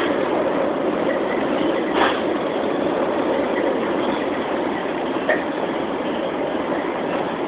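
Long Island Rail Road commuter train running at speed, heard from inside the passenger car: a steady rumble of wheels on the rails, with a short click about two seconds in and another just past five seconds.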